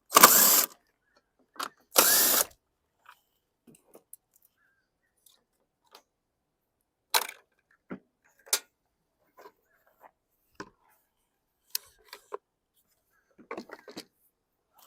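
Power drill/driver running in two short bursts, about half a second each, near the start, backing out the bolts that hold a push mower's recoil starter. Scattered clicks and knocks of parts being handled follow.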